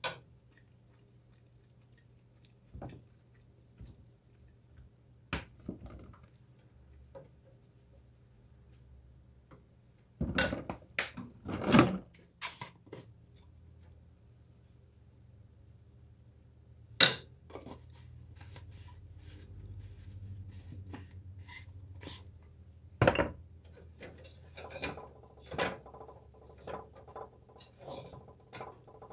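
Kitchen handling sounds: scattered knocks and clinks of utensils, dishes and containers being moved, with a loud burst of clattering about ten seconds in and single sharp knocks later on. A low steady hum runs underneath.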